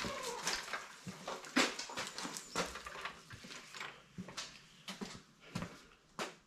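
Irregular light knocks, scuffs and footsteps on a concrete floor as gear is handled and moved around.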